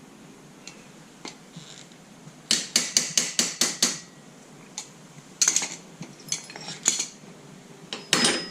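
Metal tools striking and clinking against a brake caliper's pad-retaining bar to work it free. A quick run of about seven sharp ringing taps comes, then a few single clinks near the end.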